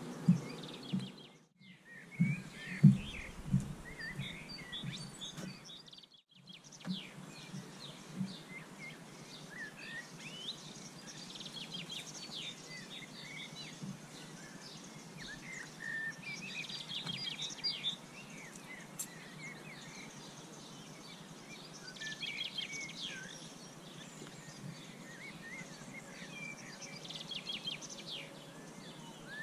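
Outdoor ambience of small birds chirping and singing, with many short chirps and calls throughout. A few dull low thumps sound in the first few seconds.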